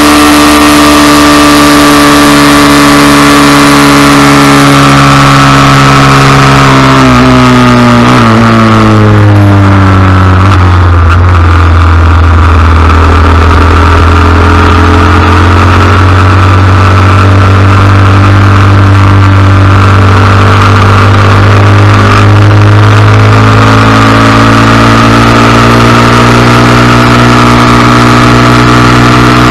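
Honda Cub 90's small single-cylinder four-stroke engine running hard, heard from on board the bike. Its pitch drops from about seven seconds in as the revs fall, holds low, then climbs again from about twenty-two seconds in as it pulls back up.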